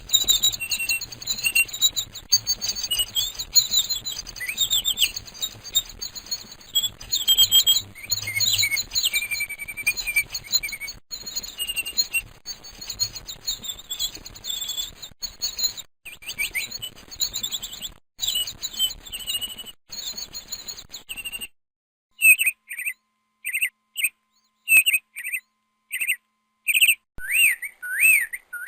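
Birdsong: first a busy chorus of many birds chirping and trilling over each other. About two-thirds of the way in, it cuts to a single bird repeating short, swooping whistled notes with gaps between them.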